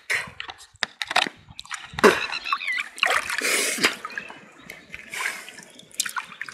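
A wet cloth bag holding freshly caught fish being handled and rummaged through: irregular wet splats, slaps and rustles, with a longer sloshing stretch near the middle.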